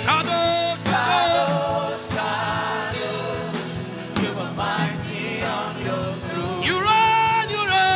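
Gospel worship music: voices singing over an instrumental backing with a steady beat.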